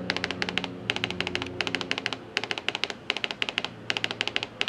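Brother Intellifax 620 thermal fax machine stepping the paper forward one line at a time as it prints a received fax: quick runs of sharp ticks separated by short pauses. A faint low hum fades out about two seconds in.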